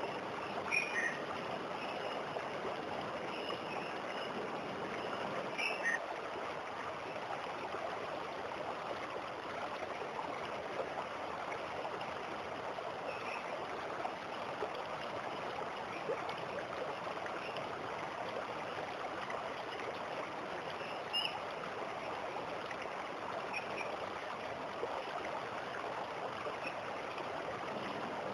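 Waterfall water flowing steadily, with a few short bird chirps every several seconds over it.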